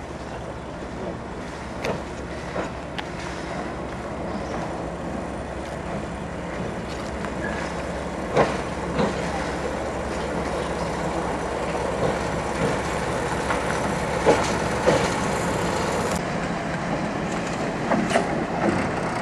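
Diesel works locomotive running slowly, its engine drone growing steadily louder as it approaches, with occasional sharp metallic clanks.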